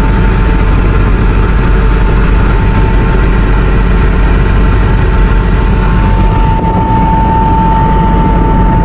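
Helicopter engine and rotor noise, loud and steady, with a high whine that swells for a couple of seconds near the end.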